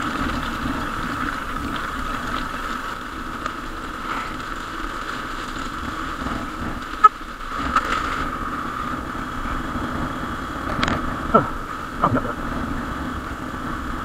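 Hero Xpulse 200's single-cylinder engine running steadily at low speed while the bike rolls over loose gravel, with a few sharp knocks in the second half.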